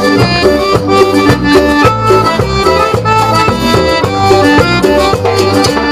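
Cumbia band playing an instrumental stretch between sung verses: a melody of held notes over a bass line and a steady, even beat.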